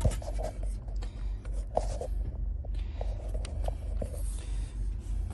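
Hand tools clicking, tapping and scraping against a car steering column as a bolt is worked on, with a few sharp clicks over a steady low hum.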